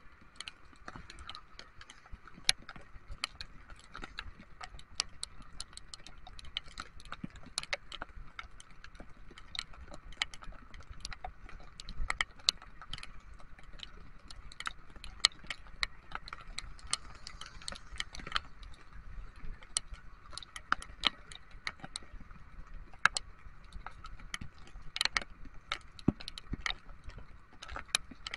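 Raindrops tapping irregularly and sharply on the camera and windscreen, close to the microphone, over the steady running of a Honda ADV 150 scooter and its tyres on a wet road.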